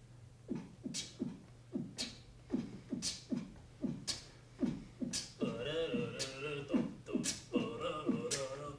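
A live percussion groove of low thumps that drop in pitch, each with a sharp high click, two to three beats a second, starting about half a second in. About halfway through, a sustained chord-like tone joins the beat.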